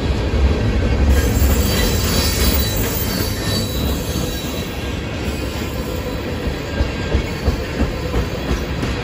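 Freight train of tank cars rolling past: a steady low rumble of steel wheels on rail, with a thin, high wheel squeal for a few seconds starting about a second in.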